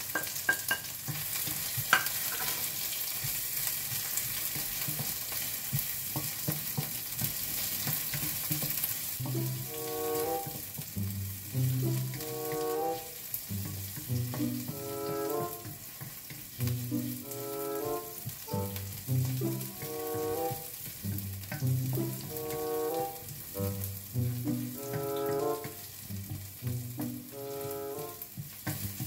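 Garlic and white onion sizzling in hot oil in a wok while being stirred with a spatula, a steady frying hiss. From about ten seconds in, a short musical phrase repeats about every two and a half seconds over the sizzle.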